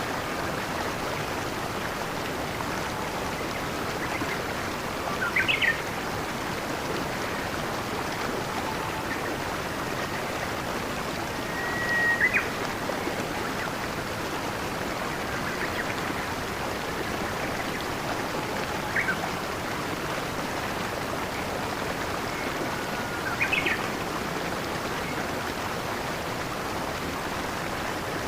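Steady rushing of a flowing stream, with a songbird chirping four times, each call short and high.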